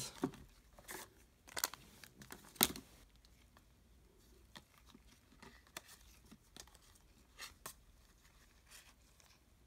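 Trading cards and foil card-pack wrappers being handled: scattered soft rustles and crinkles, with a few sharper crackles in the first three seconds.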